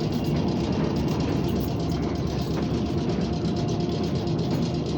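Steady running noise inside a moving electric trolley car: wheels on the rails and the car's running gear, with a faint steady hum.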